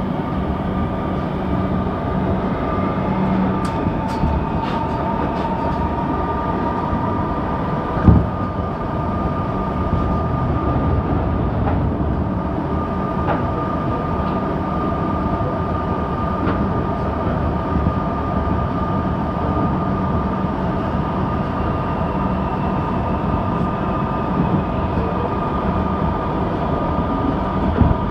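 Suburban electric metro train running at speed, heard from inside the carriage: steady rumble of wheels and running gear with a steady whine over it, and one sharp thump about eight seconds in.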